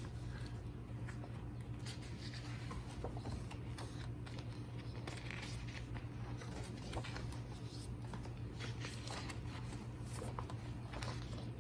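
Paper handling: pages of a photobook turned and handled, with scattered soft rustles and light taps over a steady low hum.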